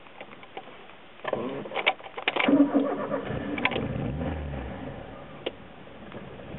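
Ford Escort/Orion 1.6i fuel-injected four-cylinder engine cranking on the starter for about a second, catching and running. The revs fade away near the end as the engine stalls.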